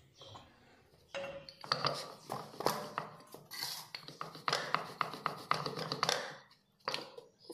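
Wooden rolling pin rolled quickly back and forth over a round of dough on a wooden rolling board: a fast run of rolling strokes with light clicks and knocks. It starts about a second in and stops about six seconds in, with one more knock shortly after.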